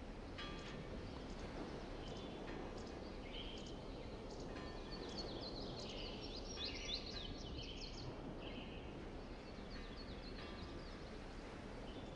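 Quiet outdoor ambience: a steady low background noise with small birds chirping and twittering throughout, busiest in the middle.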